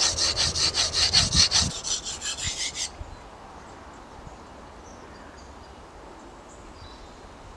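Scandinavian-grind bushcraft knife (TBS Boar) scraped back and forth across a sharpening stone in quick, even strokes, about four or five a second, raising a burr on the second side of the edge. The strokes stop about three seconds in, leaving faint outdoor background.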